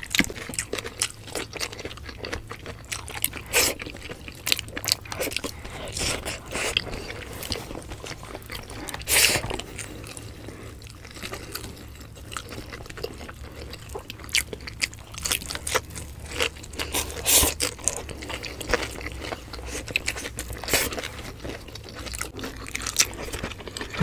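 Close-up mukbang eating sounds: irregular crunching bites and chewing of vegetables eaten by hand, with a few sharper crunches standing out among softer mouth sounds.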